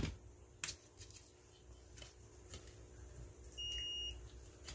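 A single high electronic beep, steady for about half a second, a little past three and a half seconds in, over a low hum and a few faint clicks of plastic battery parts being handled.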